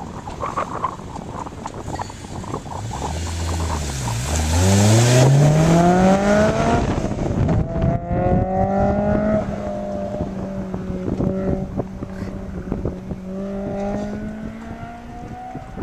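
Honda S2000's four-cylinder engine launching from a standing start: it revs up steeply in pitch for about two and a half seconds, changes gear, then holds a high, slowly climbing note as the car pulls away and grows fainter. Wind buffets the microphone near the start of the launch.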